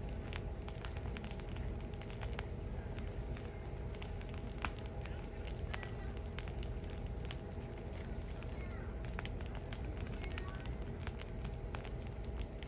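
Firewood burning in an open fire: irregular sharp crackles and pops, several a second, over a steady low rush of the flames.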